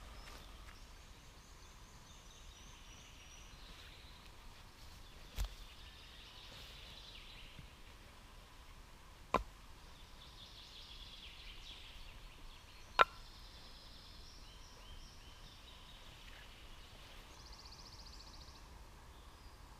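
Songbirds singing in woodland, a series of high chirping and trilling phrases. Three short, sharp knocks come about four seconds apart, the last the loudest.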